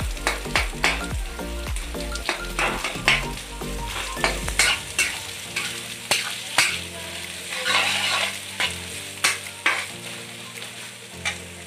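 Sliced onions and green chillies sizzling in hot oil in a kadhai while a metal spatula stirs them. The spatula scrapes and knocks against the pan many times at irregular intervals.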